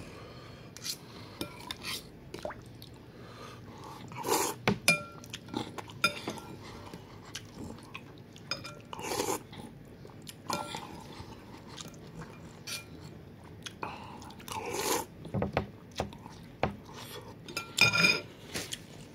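Noodles in broth being slurped and chewed, with a few loud slurps between them. A metal fork and spoon clink against the bowl in many short ticks, some ringing briefly.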